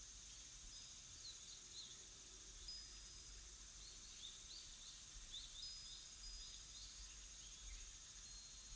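Faint background birdsong of small birds: short, quick chirps and a few thin held whistles, scattered throughout over a steady high hiss.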